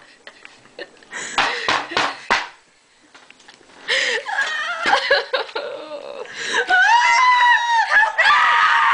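A girl screaming in a shrill, high-pitched voice that swoops up and down for about two seconds near the end, after a few short noisy bursts and some giggling.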